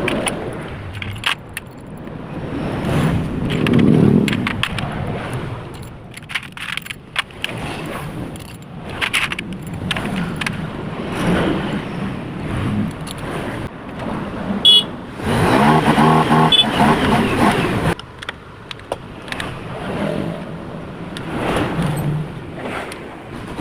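Metal tools and engine parts clinking and knocking during hand assembly of a Yamaha Vixion motorcycle engine. A motor vehicle engine runs steadily for about three seconds in the middle.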